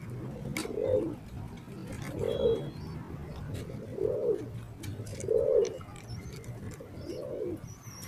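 Domestic racing pigeons cooing: five low coos, each rising and falling, spaced a second or two apart, with a few faint clicks between them.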